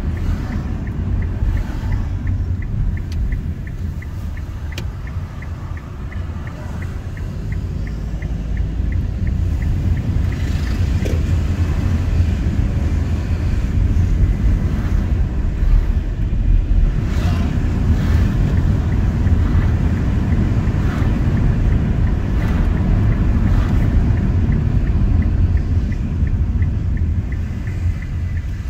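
Car driving on town streets: steady low road and engine rumble that grows somewhat louder after about ten seconds. A light, fast, regular ticking runs through the first third and comes back near the end.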